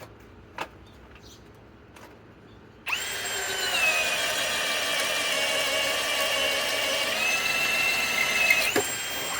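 Cordless hammer drill starting up about three seconds in and running steadily with a high motor whine. Its pitch sags a little once under way and climbs back again near the end, just before it stops.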